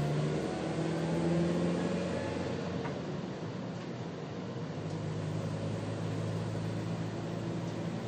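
Engine hum and road noise inside a moving vehicle's cabin. The engine note changes about two seconds in and then settles to a steady drone.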